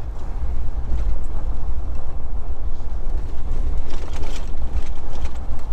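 A 4x4 pickup truck driving on a muddy dirt back road: a steady, loud low rumble of engine and road noise, with wind buffeting the microphone.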